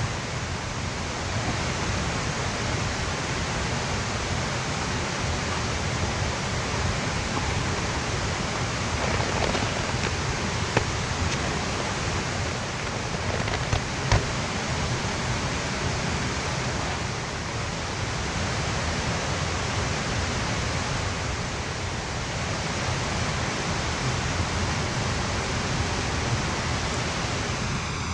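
Steady rush of stream water in a valley, with a few brief knocks from handling near the middle.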